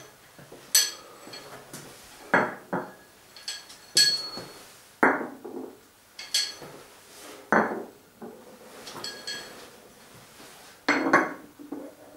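Metal chain sprockets being set down one at a time by hand: a series of sharp metallic clinks, some ringing briefly, mixed with duller knocks, about every one to two seconds.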